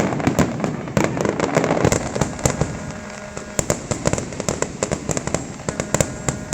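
Fireworks display: a dense rattle of rapid pops and crackles, easing slightly about halfway through, then picking up again with many sharp reports in quick succession.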